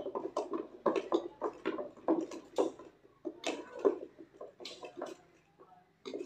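Wooden hand churn (madhani) worked through buttermilk, cream and ice in a steel pot: irregular sloshing strokes with the stick knocking on the pot, two or three a second at first, then fewer and dying away near the end. This is the last stage of hand-churning butter, stirred with ice so the butter sets and rises while the buttermilk settles.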